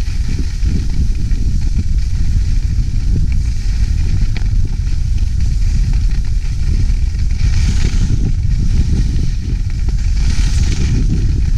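Wind buffeting an action camera's microphone while skiing at speed: a steady, heavy low rumble. Ski edges carving on packed snow give two hissing scrapes, one about two-thirds of the way through and one near the end.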